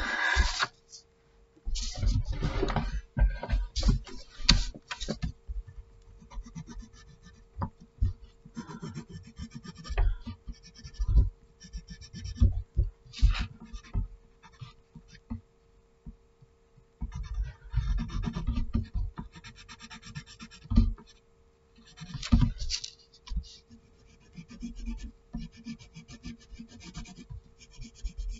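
Pencil scratching on drawing paper in runs of short strokes, broken by pauses, with low bumps of the hand and paper against the table. A faint steady hum sits underneath.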